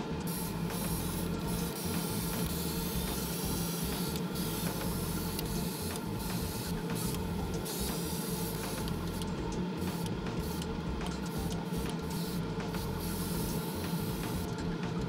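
Airbrush spraying paint with a hiss that starts and stops many times, over a steady motor hum.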